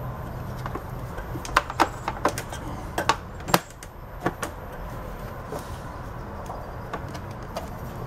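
Hard plastic clicking and knocking as the hose cover is pressed back into place on a Hoover upright vacuum cleaner's housing: a run of sharp clicks from about one and a half to four and a half seconds in, over a steady low hum.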